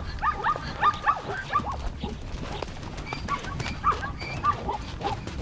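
A group of elephants calling to one another in a quick run of short, squeaky calls that rise and fall in pitch. The calls come thickest in the first two seconds and thin out after that, with some sharp clicks mixed in.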